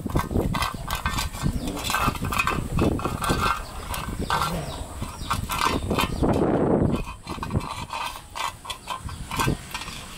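Puppies eating from steel bowls on concrete: a busy run of quick clicks and scrapes from chewing, licking and the bowls knocking about, with a louder rush of noise about six seconds in.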